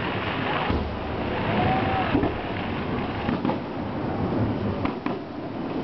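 Fireworks display: several booms and cracks about a second apart over a steady rumbling background noise.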